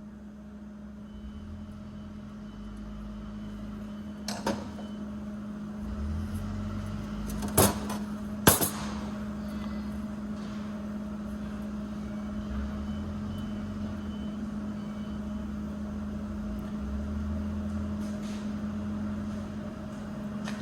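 A steady machine hum at one pitch over a low rumble, with three sharp knocks: one about four seconds in and two close together around seven and a half to eight and a half seconds in.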